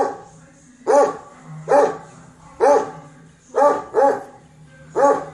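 A dog barking repeatedly, roughly one short bark a second, sometimes two in quick succession.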